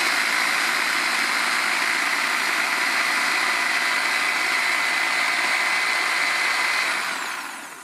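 Silvercrest SSMS 600 E6 600 W hand blender running on turbo in its chopper attachment, chopping parsley, a steady motor noise with a high whine. The motor cuts off and winds down near the end.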